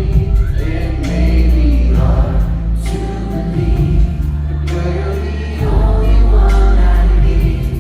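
Live pop song performed by a band with several voices singing together in harmony over heavy bass and a regular drum beat.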